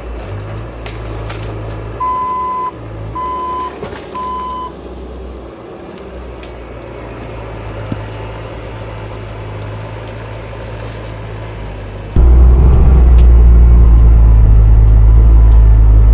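Bobcat T650 compact track loader's diesel engine running, with three beeps of its backup alarm a couple of seconds in as the machine reverses. About twelve seconds in, the engine rumble becomes suddenly much louder and deeper.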